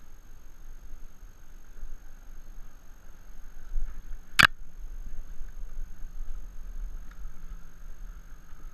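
Low rumble of handling noise on a head-mounted camera as the angler moves over the rocks, broken by one sharp click about four seconds in.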